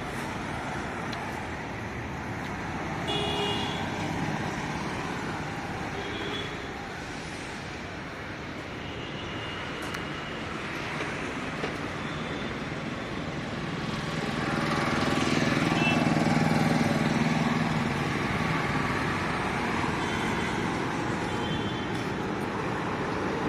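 Busy road traffic with several short vehicle horn toots. A louder vehicle passes about fifteen seconds in, rising and then fading.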